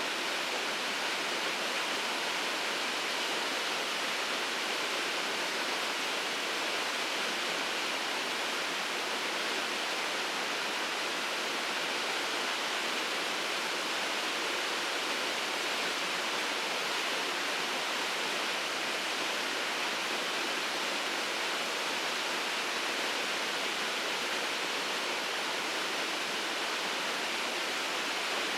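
Shirogane Falls, a waterfall, pouring steadily: an even rushing noise, brightest in the upper range, with little low rumble.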